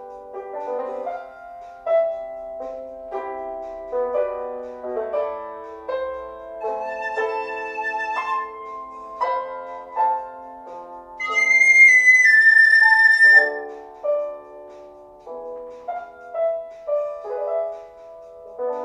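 Flute and piano playing a slow melody, the piano's struck notes under the flute line. About two-thirds of the way through, the flute holds a loud high note that steps down to a lower one.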